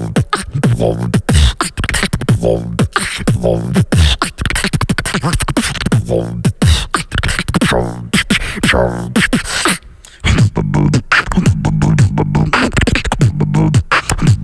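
Beatboxing into a handheld microphone: fast drum-like clicks and hits with falling bass sweeps. About ten seconds in there is a short break, then a second beatboxer comes in with a steady, pulsing low bass tone under the percussion.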